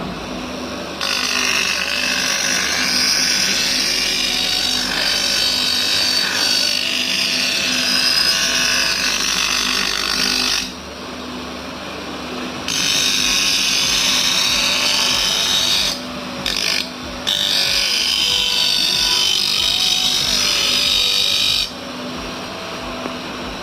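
A lathe runs with a steady motor hum while a cutting tool bites into the spinning workpiece in three long passes with short breaks between. The first pass lasts about ten seconds, and each pass is a loud, hissing scrape.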